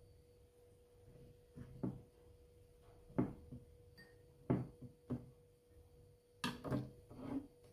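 Soft, scattered knocks and taps on a wooden cutting board and bowl as chopped tomato is scooped up by hand and dropped into the bowl: single knocks spaced about a second apart, then a quick cluster near the end.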